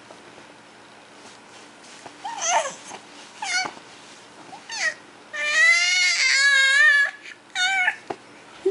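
A baby's high-pitched squeals and cooing vocal sounds: five wavering calls, the longest and loudest held for over a second in the middle.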